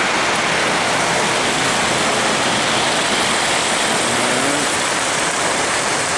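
Model train running on a layout's track: a steady rushing, whirring noise.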